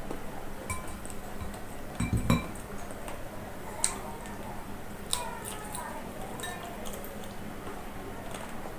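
Scattered light clinks and knocks of plates and cutlery at a meal table, with a heavier clattering knock about two seconds in.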